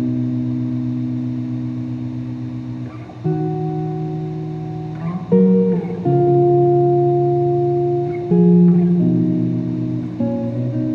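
Solo guitar playing slow chords. Each chord is struck and left to ring, and the chord changes every two to three seconds.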